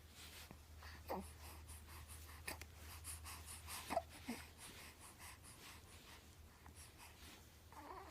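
A baby's faint breathing broken by a few short, soft hiccups, about one, two and a half and four seconds in.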